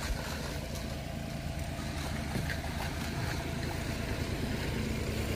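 An engine running steadily, a low even drone.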